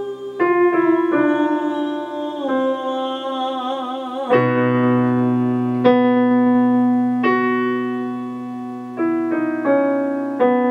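Digital piano playing the accompaniment to a vocal warm-up exercise, while for the first four seconds or so a woman sings a held vowel with vibrato over it. She stops about four seconds in and the keyboard plays on alone, a series of piano chords struck one after another.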